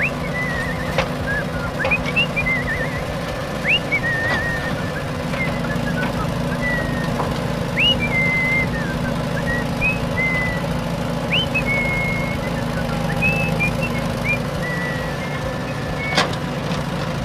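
A steady low vehicle engine drone, with short high whistle-like chirps that rise and fall scattered throughout.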